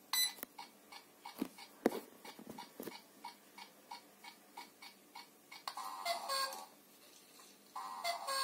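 LEGO Mindstorms EV3 robotic cuckoo clock ticking about three times a second, with a few louder mechanical clunks about two seconds in. About six seconds in, and again near the end, it sounds a two-note falling cuckoo call as the cuckoo bird pops out.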